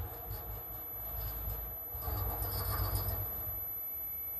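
Liquid mixer's 1 hp single-phase electric motor driving the agitator at low speed under inverter control, a steady low hum with light irregular rattles.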